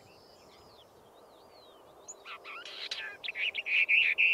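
Western Orphean warbler singing: faint warbled notes for about two seconds, then a loud song phrase that ends in a run of quickly repeated notes, the species' characteristic 'tirru, tirru' part.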